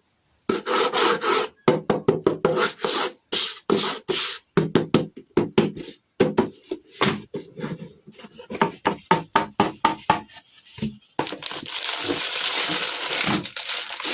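Hands handling toy packaging: a rapid series of short scraping, rubbing and tapping strokes, then from about eleven seconds in a continuous crinkling of packaging.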